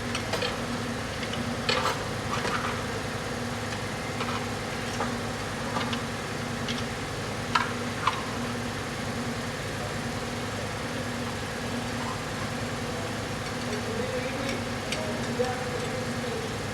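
Steady mechanical hum with a low drone pulsing about once a second, and a scattering of short sharp metal clicks and clinks from hand tools and engine parts, the loudest pair near the middle.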